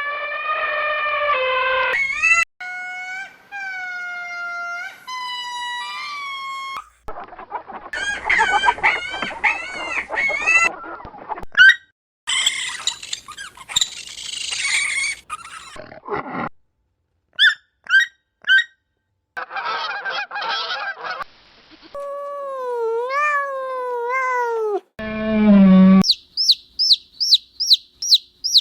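A series of different animal calls cut one after another: pitched honking and squawking calls, some of them bird-like, with short silences between clips. It ends in a fast run of high chirps, about four a second.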